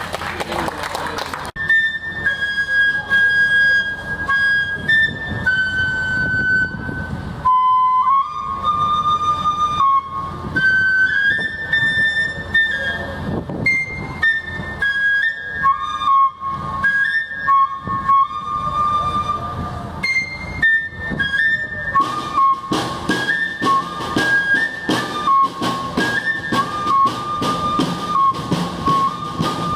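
Cane fife playing a bluesy melody of held and stepping notes over snare and bass drum, in the North Mississippi fife-and-drum style. The fife comes in about a second and a half in, and the drumming grows busier and louder past the middle.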